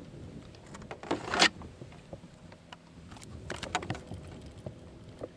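Handling noises aboard a kayak as a freshly caught bass and gear are dealt with: a few sharp clicks and knocks, and the loudest sound, a rustling scrape, a little over a second in.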